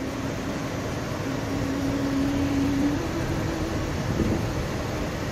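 Steady cabin noise of a car driving on a snow-covered road, with a faint whine that climbs slightly in pitch and fades out about three seconds in.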